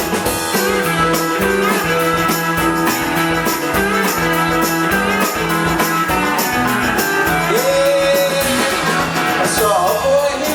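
Live rock band playing an instrumental passage between verses: electric guitars over drums keeping a steady beat.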